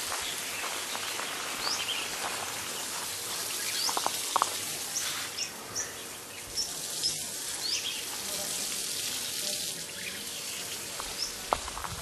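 Forest ambience: a steady high hiss with a bird repeating short, high chirps about a dozen times, and a few faint clicks around four seconds in and again near the end.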